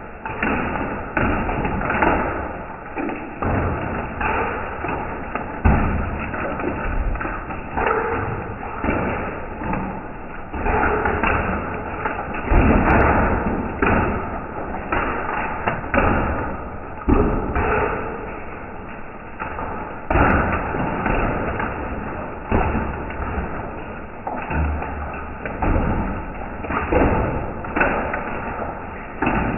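Hailstones hitting a wet concrete patio, heard slowed down: a dense, irregular run of deep, muffled thuds and knocks, some much louder than the rest.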